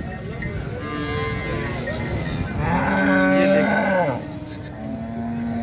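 Cattle mooing: a fainter call about a second in, then a long, loud moo a little past the middle, and another lower call starting near the end.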